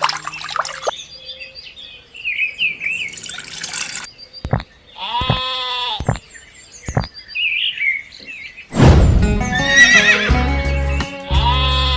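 Background music mixed with animal sound effects: small bird-like chirps, and an animal call about five seconds in. A louder passage with a steady bass beat comes in near the end.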